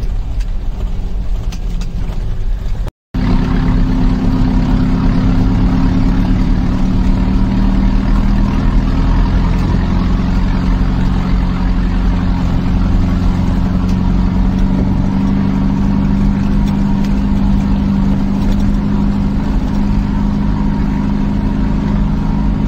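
Mahindra jeep's engine running at a steady pitch while driving over a dirt track, with road and body noise. The sound cuts out briefly about three seconds in, then carries on louder.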